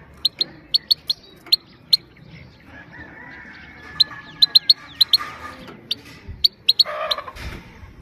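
Female goldfinch giving short, sharp 'pit' calls, singly and in quick runs of two to four. These are the female's plain 'pit pit' contact calls, used to rouse and train male goldfinches. A brief scratchy noise comes about seven seconds in.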